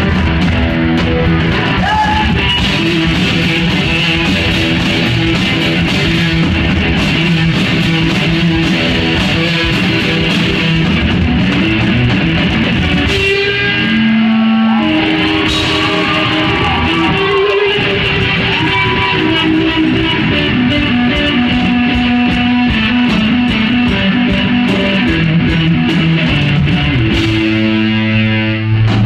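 A live two-piece rock band, electric guitar and drum kit, playing loud. Just after the middle the drums thin out and the guitar plays bending, gliding notes, and near the end the song shifts to long held low chords.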